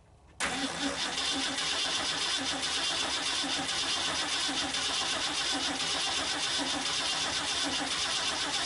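Ford 390 FE V8 cranking on the starter without catching; the sound starts abruptly about half a second in and holds steady. The cranking works the fuel pump and fills the new glass inline fuel filter, but the engine does not fire because fuel has not yet reached the carburetor bowls.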